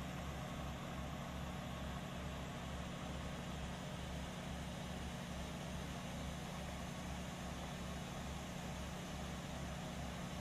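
Helicopter engine and rotor drone, steady, with a low, even pulsing hum underneath.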